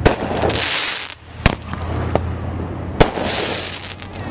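Aerial firework shells bursting overhead: a sharp bang right at the start, another about a second and a half in, and a third about three seconds in. The first and third bangs are each followed by a hissing crackle lasting under a second.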